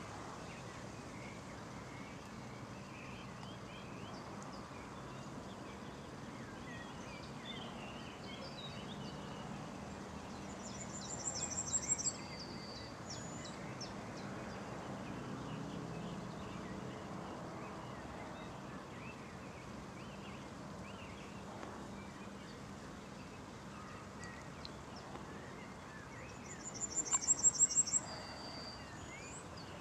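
Outdoor birdsong over a steady low background hum. A small songbird sings two short, very high, rapid trilled phrases that grow louder, about ten seconds in and again near the end. Other birds call faintly throughout.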